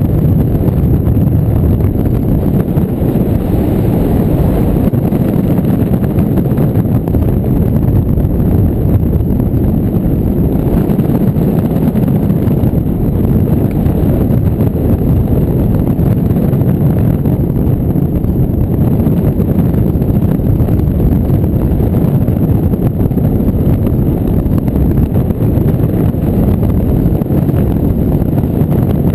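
Steady, low rumble of wind buffeting the microphone of a camera mounted on a hang glider's wing in flight.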